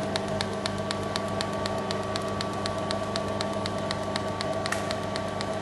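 OTC robotic TIG welder running a weld: a steady electrical hum with a rapid, even ticking, several ticks a second.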